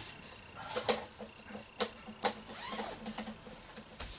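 Wire clothes hangers clacking and scraping on a closet rod as hung clothes are pushed aside, with a few sharp clicks, over a faint steady hum.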